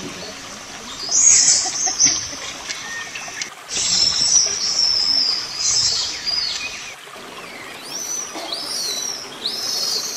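High-pitched animal calls: shrill squeals about a second in and again from about four to six seconds, then three quick arching whistles near the end, over a steady hiss.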